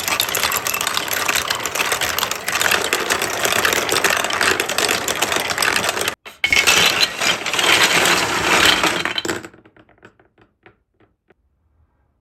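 Many glass marbles clattering down plastic building-block marble-run tracks in a dense, continuous rattle, with a brief break about six seconds in; the clatter then thins to scattered clicks and stops.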